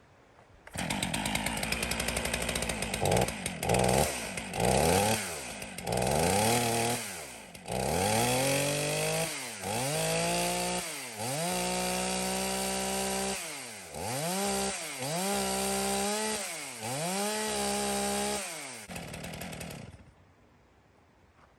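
Stihl MS440 two-stroke chainsaw starting on the first pull, running unevenly with quick throttle blips, then revved up and let back down about half a dozen times as a run-test with a fresh chain, and switched off near the end.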